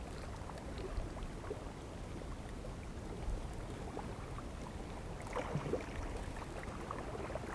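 Small waves lapping and washing against a rocky shoreline, with wind rumbling on the microphone and a few faint taps, a small cluster of them a little past five seconds in.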